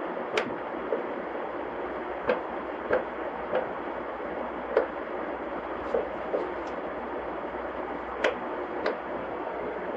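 Steady whir of a ceiling fan, with about ten light clicks at uneven intervals.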